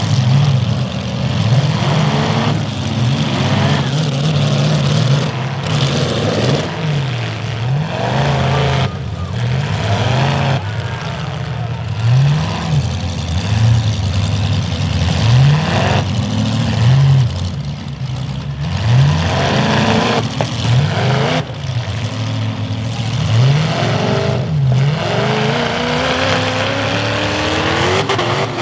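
Several demolition derby car engines running together, revving up and dropping back again and again, their pitch rising and falling every second or two.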